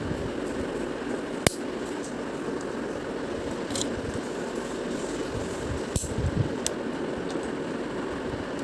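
Sharp snaps and clicks as Tambola number coins are broken off their sheet by hand, the loudest about a second and a half in and a few more around six seconds, over a steady background noise.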